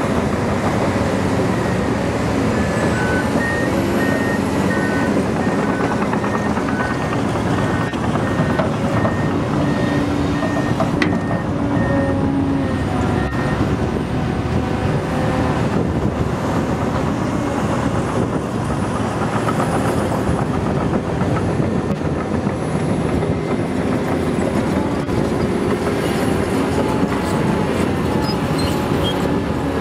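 Large hydraulic excavator (Komatsu PC800LC) working under load, its diesel engine and hydraulics running steadily as it digs and loads soil into an articulated dump truck. A high backup alarm beeps in short repeated runs at times.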